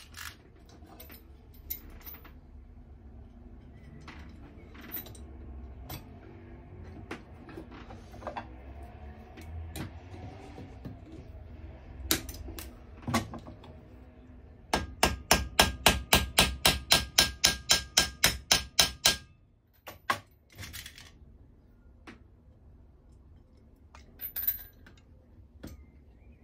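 Hammer setting steel rivets in a laser-cut steel locomotive part held in a vice. About fifteen seconds in comes a quick run of about twenty ringing blows, some four or five a second. Scattered knocks and clatter from parts and tools being handled come before and after.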